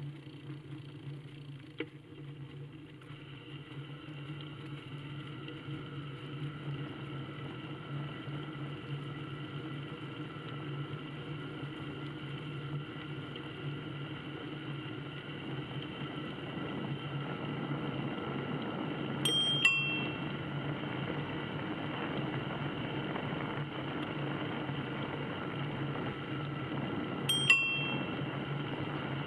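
Bicycle bell rung twice, a short ring about two-thirds of the way in and another near the end, as a warning to walkers on the path ahead. Beneath it a steady hum runs on from the ride.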